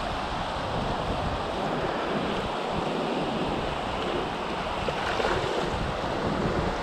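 Fast mountain river rushing over a stony bed and through rapids: a steady, even rush of water.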